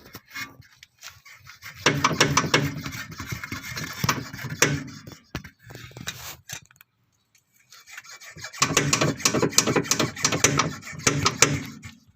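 A loose rear anti-roll bar (stabilizer) part rattling and knocking as it is worked back and forth, in two bouts of a few seconds each. This is the knock from the rear of the car, which the owner puts down to a missing stabilizer rubber bushing.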